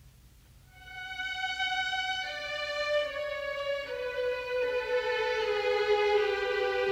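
Background music: a violin playing slow, held notes that step downward in pitch, coming in about a second in after a quiet start.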